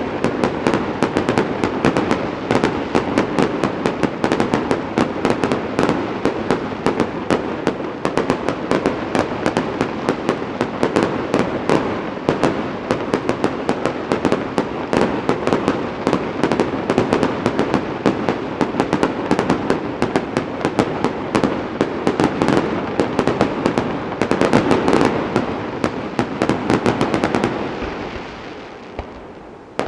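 Aerial fireworks in a dense, continuous barrage of bangs and crackling, dying away over the last two seconds.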